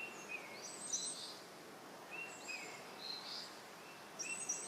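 Birds chirping over a soft steady hiss: short whistled calls, each ending in a falling note, repeat about once a second, with higher twittering above them.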